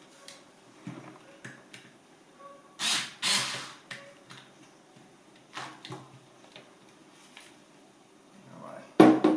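Tools and parts being handled on a workbench: scattered light clicks and knocks, two louder scraping noises about three seconds in, and a sharp clatter near the end.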